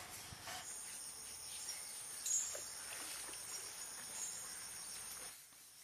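Insects keeping up a steady high-pitched drone, starting about a second in and cutting off abruptly about five seconds in.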